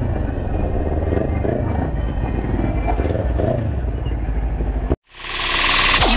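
Motorcycle engine running while riding, its pitch rising and falling with the throttle, with road and wind rumble. About five seconds in it cuts out and loud electronic music swells in with a rising sweep.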